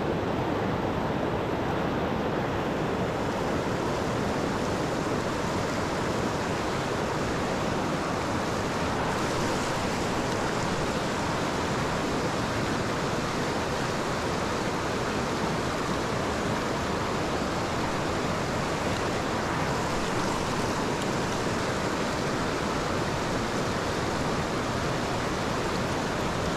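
Shallow river rapids rushing over rock ledges close by: a steady, unbroken sound of white water.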